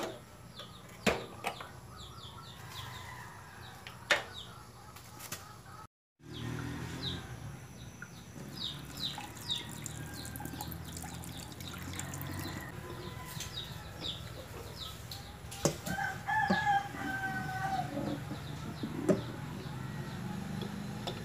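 A glass jar of eggs being handled at a stainless steel sink: clicks of the lid and glass, then its liquid poured out into the sink. Chickens cluck in the background, and a rooster crows about two-thirds of the way through.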